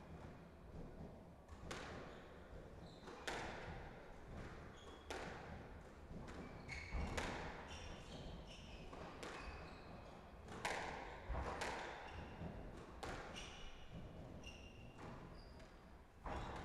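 Squash rally: about a dozen sharp, echoing smacks of the ball off rackets and the walls, roughly one a second, with short high squeaks of players' shoes on the wooden court floor in between.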